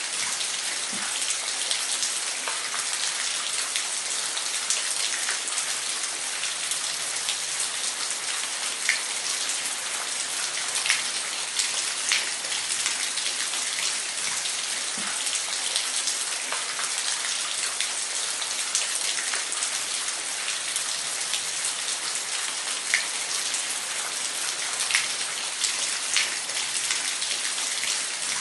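Waterfall: a steady hiss of falling water, with scattered brief splashes standing out every few seconds.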